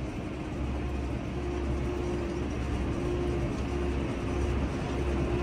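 Tractor engine running at a steady speed: a low drone with a steady whine above it.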